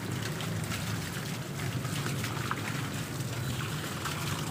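Water running and splashing from a garden hose pipe, with a steady low hum underneath and a few faint ticks.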